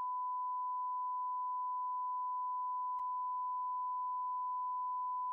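A steady 1 kHz censor bleep, one unbroken pure tone, laid over the caller's spoken phone number in an answering-machine message. A faint click about halfway through.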